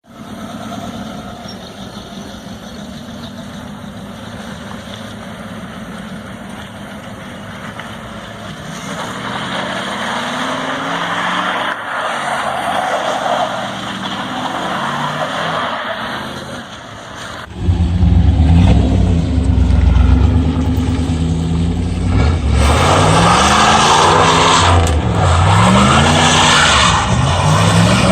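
Chevrolet Camaro engine running under load, its pitch climbing in steps. About two-thirds of the way through it gives way abruptly to a much louder engine revving up and down several times.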